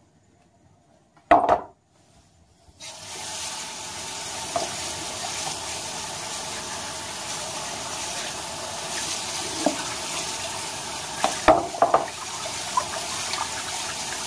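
Water pouring through a metal mesh colander into a sink, starting about three seconds in and running steadily after that, as sliced leeks are drained of their soaking water and rinsed under the tap. A sharp knock comes about a second in, and a couple of short knocks come near the end.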